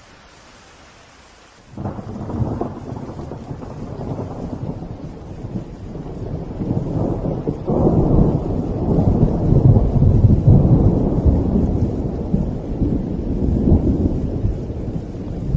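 Steady rain hiss, then a sudden thunderclap about two seconds in that rolls on as a long, low rumble, swelling louder again about halfway through.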